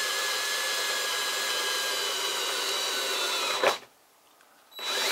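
Electric drill running at steady speed with a whine, its bit boring through the bus's painted sheet-metal side panel. The drill stops with a brief louder grind about three and a half seconds in, then starts again about a second later.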